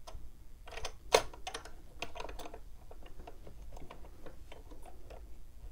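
Hands fitting a knitting machine's metal table clamps and their plastic pads against a wooden table edge: irregular small clicks and knocks of metal and plastic, the sharpest about a second in, then lighter ticks.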